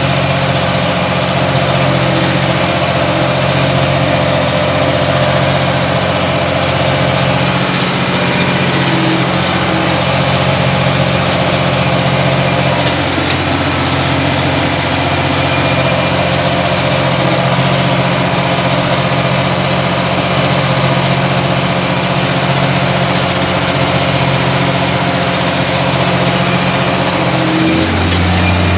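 Ursus 1224 tractor's diesel engine running steadily, with a shift in its low note near the end.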